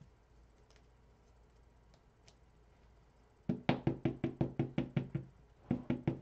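Rapid knocking on a hard, hollow-sounding surface, about six knocks a second: a run of about a dozen starting past the middle, a brief pause, then four more near the end.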